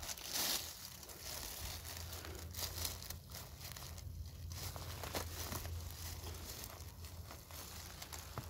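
Dry fallen beech leaves rustling and crinkling in quick little crackles as a hand works through the litter and pulls up a porcini mushroom, with a louder rustle about half a second in.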